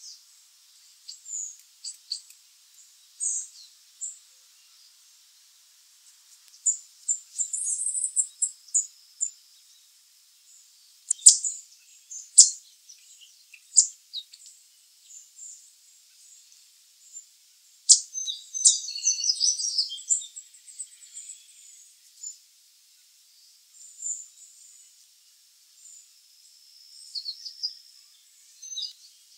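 Black-capped chickadees calling: scattered high chips and short twittering runs, busiest twice, with a few sharp clicks near the middle.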